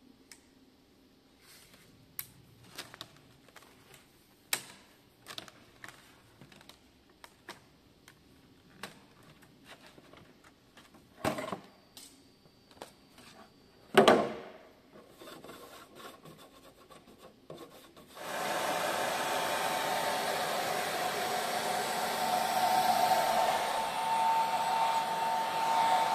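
Scattered light clicks and knocks as a 3D-printed cover is handled and trimmed on a granite table, with one sharp knock about 14 seconds in. About 18 seconds in, a heat gun switches on and runs steadily with a faint whine, blowing hot air onto the warped printed cover to soften it so it can be bent back.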